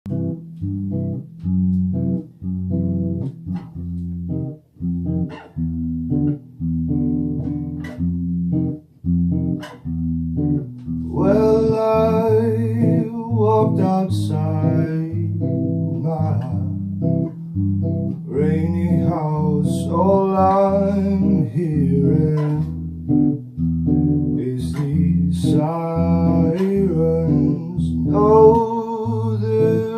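Blues song: a plucked bass guitar and guitar play a rhythmic riff, and a singing voice comes in about eleven seconds in.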